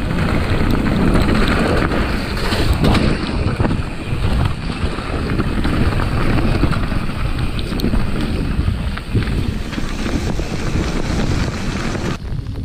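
Wind rushing over an action camera's microphone together with tyre roar and rattling knocks of a mountain bike descending a wet gravel singletrack. The rush drops sharply near the end as the bike slows onto open ground.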